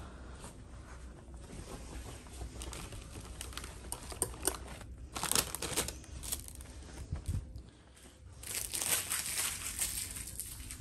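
Quiet rustling and crinkling as things are handled and moved about, with scattered light clicks. Louder bursts of rustling come about five seconds in and again near the end.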